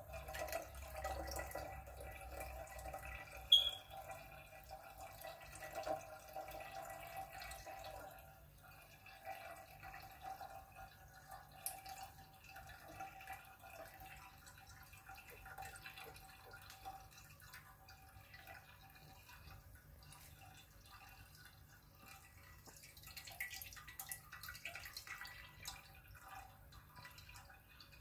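Blended cucumber juice trickling and dripping through a mesh sieve into a glass drink dispenser, busiest over the first several seconds and then thinning to faint drips. One sharp click about three and a half seconds in.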